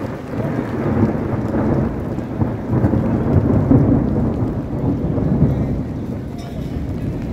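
A long roll of thunder: a low rumble that swells over the first seconds, is loudest about three to four seconds in, and slowly dies away, with rain falling underneath.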